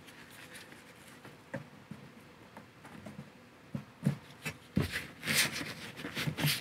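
Plastic fuel-line quick-connect fittings on a fuel pump module being worked loose with a disconnect tool: scattered sharp clicks and knocks, thicker in the second half, with a short rustling hiss about five seconds in.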